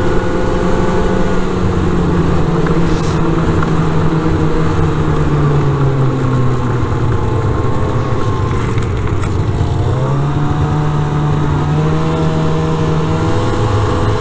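Snowmobile engine heard from the rider's seat, running steadily at cruising speed. Its note dips and then climbs back up about ten seconds in.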